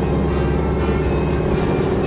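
T-6 Texan's nine-cylinder Pratt & Whitney R-1340 radial engine droning steadily during aerobatic flight.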